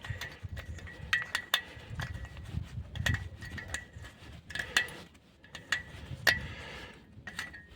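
Irregular metallic clinks and taps of steel tools and small parts on a KAMAZ truck's wheel hub, each with a brief ring, as the guide bushings are taken off.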